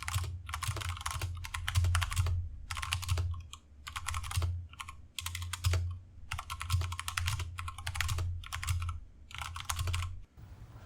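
Typing on a stock Drop Ctrl mechanical keyboard as a sound test: fast runs of key clicks in short bursts with brief pauses, stopping shortly before the end.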